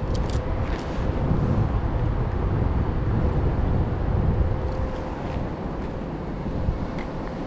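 Wet city street ambience: a steady rumble of traffic and wind buffeting the microphone, with a faint steady hum and a few faint clicks.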